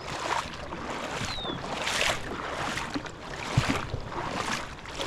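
Fast-flowing river water with wind buffeting the microphone, a steady rushing noise that swells and eases, with one brief low knock a little past the halfway point.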